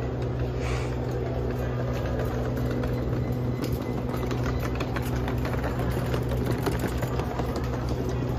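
Steady diesel engine hum of a passenger train standing at the platform. Light clicking and rattling of suitcase wheels rolling over paving tiles sits on top from a few seconds in.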